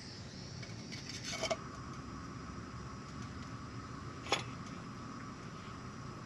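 Metal camp cookware clinking: a short clatter about a second and a half in and one sharp clink a little past four seconds, over a steady background hiss.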